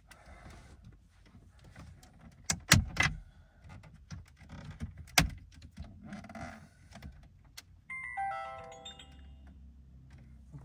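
Plastic dashboard trim clips clicking and creaking as the trim around a Mini Cooper S F55's centre display is pried off by hand, with sharp snaps about three and five seconds in. About eight seconds in, an electronic chime of several descending tones rings and fades.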